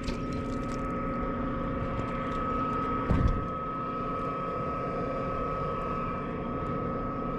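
A steady motor hum with a constant high whine over it, and a single low thump about three seconds in.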